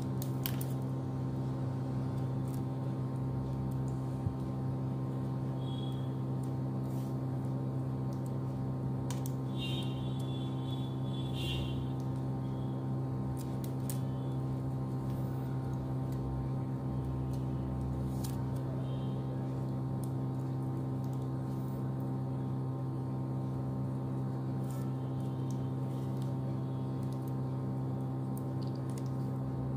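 Steady low electrical hum, with faint scattered clicks and crinkles of plastic craft wire being pulled and tucked by hand while it is woven into a knot.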